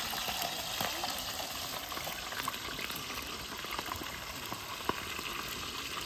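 Fish frying in hot oil in a wide pan: a steady sizzle with scattered sharp pops.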